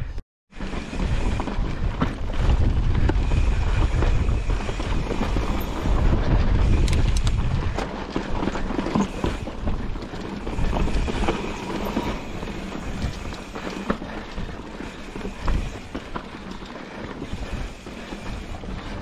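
Mountain bike riding over a rocky dirt trail: tyre noise with clattering knocks from the bike and wind buffeting the microphone, easing somewhat in the second half. The sound drops out for a split second just after the start.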